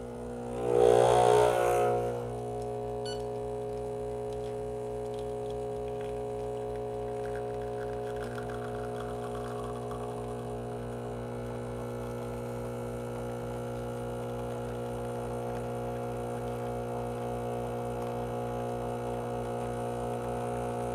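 Breville Barista Express's vibratory pump humming steadily as it pulls an espresso shot, louder for a second or so near the start.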